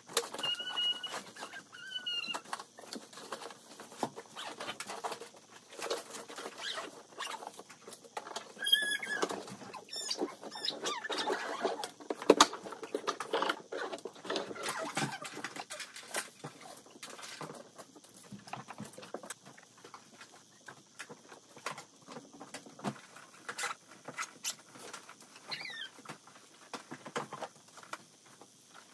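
Rustling and clicking of belongings being handled and packed into a hard-shell suitcase and a backpack, irregular and continuous. A few short high-pitched tones come through, one just after the start, a wavering one about nine seconds in, and a falling one near the end.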